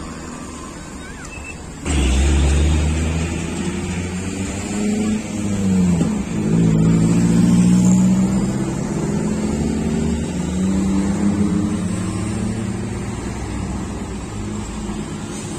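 Forklift engine revs up sharply about two seconds in and runs hard under load. Its pitch dips and climbs again near the middle, then holds a steady strained note that slowly eases off.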